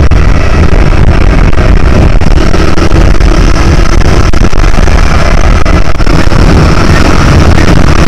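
Motorcycle cruising at steady highway speed, a loud, unbroken drone of engine with wind and road noise.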